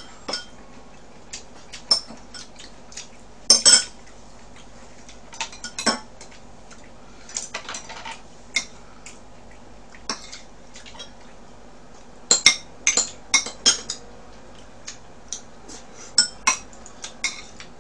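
Eating utensils clicking and clinking against a rice bowl and a frying pan while food is scooped and mixed. The clicks are scattered, with a tight cluster about three and a half seconds in and another run about two-thirds of the way through.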